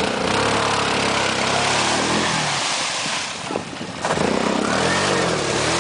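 Quad bike (ATV) engine revving and pulling, its pitch rising and falling. It eases off briefly about three and a half seconds in, then picks up again.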